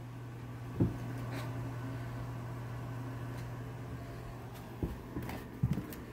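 Quiet room tone with a steady low hum, broken by a few soft knocks: one about a second in and a small cluster near the end.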